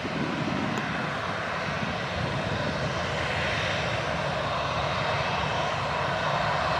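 Boeing 737-800's CFM56-7B turbofan engines running at idle while the jet holds short of the runway: a steady jet hiss that grows slightly louder.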